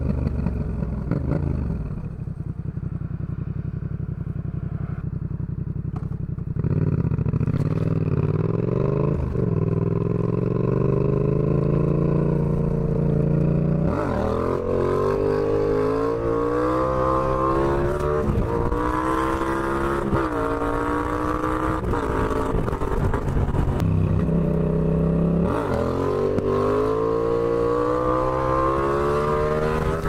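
Yamaha XSR700's 689 cc parallel-twin engine and exhaust under way. It runs low and steady for a few seconds, then pulls hard from about six seconds in, climbing in pitch through several gear changes, each marked by a brief dip. There is a lull a little after twenty-five seconds before it accelerates again.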